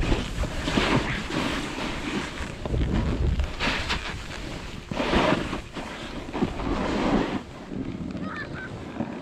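Skis sliding and scraping over snow through a series of turns, with wind rushing over the microphone. The scraping swells several times, about every second and a half.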